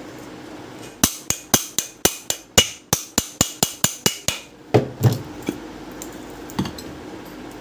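A fast run of about fifteen sharp hammer-like knocks, roughly four a second, stopping after a few seconds, followed by a few duller thumps.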